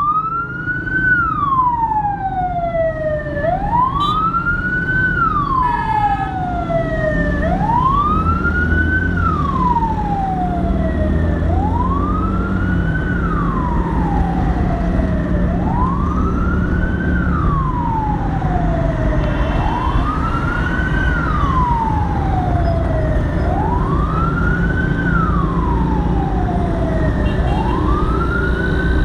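Ambulance siren wailing, each cycle rising quickly and falling slowly about every four seconds, over a steady rumble of road traffic. Brief horn toots cut in a few times.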